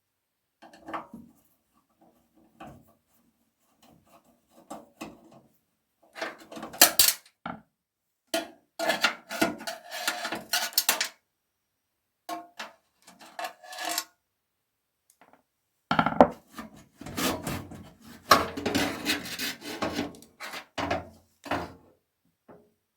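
Hands working on SSD and SATA cabling inside a desktop PC case: irregular plastic and metal clicks, rattles and rubbing, in three busy stretches with quieter gaps between.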